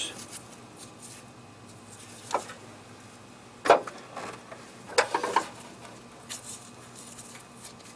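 A few light knocks and clicks of tools and parts being handled, the sharpest about halfway through, over a faint steady hum.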